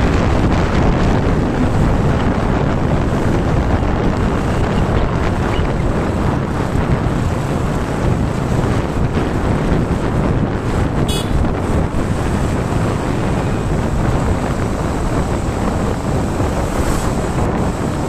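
Wind buffeting the microphone of a camera carried on a moving vehicle, a steady loud rush mixed with road noise.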